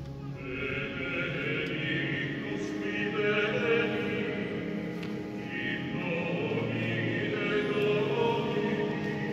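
Choir singing a sacred hymn, sustained wavering voices echoing through a vast basilica nave.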